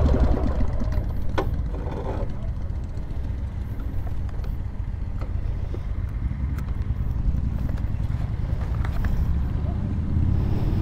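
Harley-Davidson Sportster's air-cooled V-twin engine running at low speed as the motorcycle rolls slowly to a stop. The throttle eases off right at the start, leaving a steady low rumble with a few light clicks.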